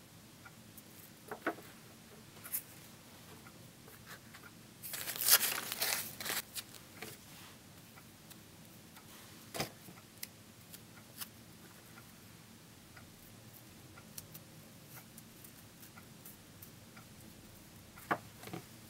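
Thin white paper being torn and crumpled by hand, with scattered soft crinkles and small taps, and one longer, louder stretch of tearing and crumpling about five seconds in.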